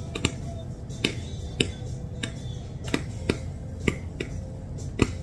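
A string of sharp, separate snaps or pops at uneven gaps of about half a second, over a steady low rumble.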